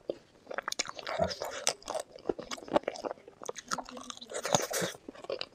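A person chewing food close to the microphone, with many irregular crunches and clicks.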